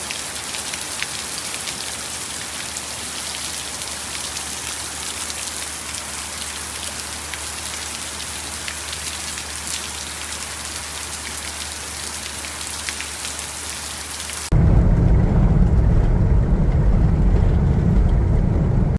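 Steady rain falling, an even hiss with scattered drop ticks. About fourteen seconds in it cuts abruptly to a much louder low rumble, the hiss gone.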